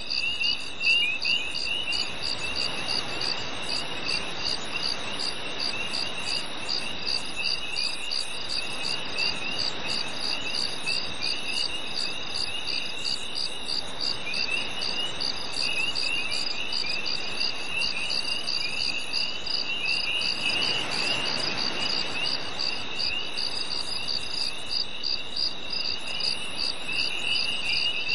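Night chorus of crickets: a high, even chirping that pulses a few times a second over a steady high ringing, with a lower trilling that comes and goes. A soft hiss swells briefly about twenty seconds in.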